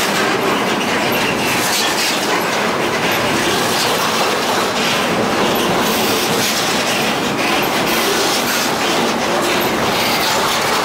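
A train rolling past at close range: steel wheels clicking over rail joints under a steady, loud rumble of railcars.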